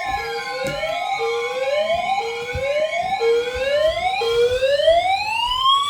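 Emergency alert audio for a severe thunderstorm warning. A steady two-tone attention signal fades out about four seconds in, under a siren-like whoop that rises over and over about every half second. Near the end the whoops give way to one slower, longer rising wail.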